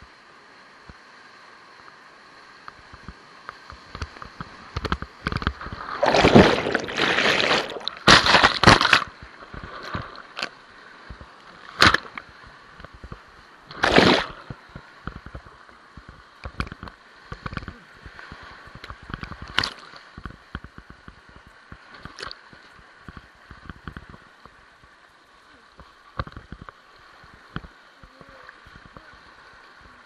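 Whitewater rapid churning and sloshing around an inflatable raft as it capsizes. There are loud bursts of splashing about six to nine seconds in and again near fourteen seconds, and many short, sharp knocks throughout.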